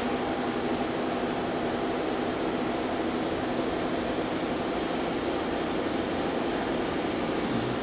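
Steady whirring hum of cooling fans in the open electrical cabinet of a powered-up Hardinge 710 XV CNC vertical machining centre, with a few faint constant tones over it.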